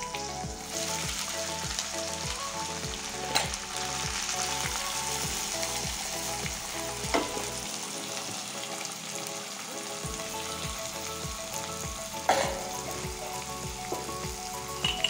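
Chopped onions sizzling and crackling in hot groundnut oil in a kadai, the sizzle growing louder about a second in. A wooden spatula stirs them and knocks against the pan three times.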